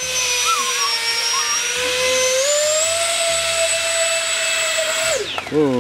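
A 70 mm electric ducted fan on a radio-controlled hydroplane boat whines steadily at high throttle as the boat planes. Its pitch rises a step about two and a half seconds in. Near the end the whine drops sharply and falls away.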